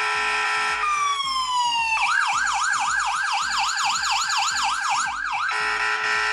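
Anti-theft alarm app sounding from a phone's speaker, set off by the phone being touched in motion-detection mode. It is a loud siren: a steady multi-tone blare that slides down in pitch about a second in. About two seconds in it switches to a fast wail of about four up-and-down sweeps a second, then returns to the steady blare near the end.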